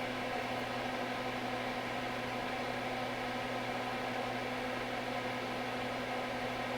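A steady low electrical hum with an even hiss behind it, unchanging throughout, from equipment running on the repair bench.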